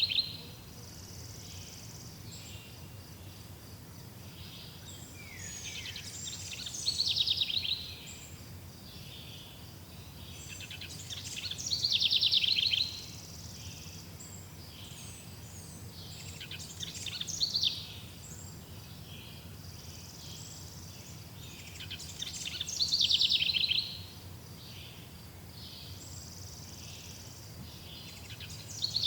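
Forest bird song: one bird repeats a quick phrase of rapid notes that falls in pitch, about every five to six seconds, with fainter birds chirping between phrases over a steady low hum.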